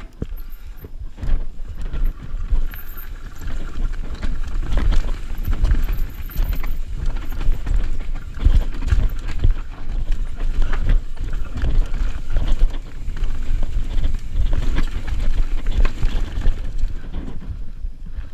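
Mountain bike descending rough, rocky singletrack: a constant run of irregular knocks and rattles as the bike and its suspension fork hit rocks and roots, over a heavy low rumble.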